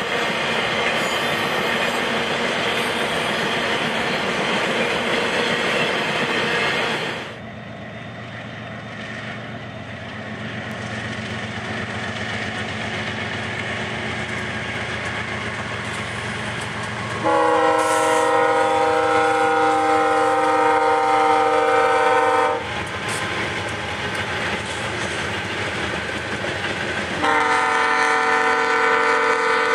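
Freight train rolling past at close range, a steady noise of wheels on rail, which cuts off abruptly about seven seconds in. Then BNSF diesel locomotives approach with a low engine rumble and sound their air horn twice, a chord of several tones: one long blast of about five seconds, and a second starting near the end.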